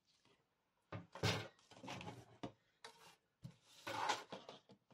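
Sheets of card and paper being slid and set down on a cutting mat: a few short bursts of rustling and scraping, with a light tap about two and a half seconds in.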